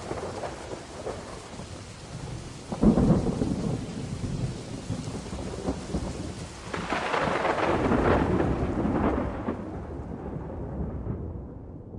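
Thunderstorm sound effect: steady rain with a sudden thunderclap about three seconds in, then a longer rolling rumble of thunder from about seven to nine seconds, fading near the end.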